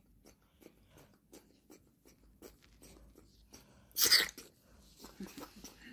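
Baby monkey sucking milk from a feeding bottle: a regular run of small sucking clicks, about three a second, with one brief loud breathy burst about four seconds in.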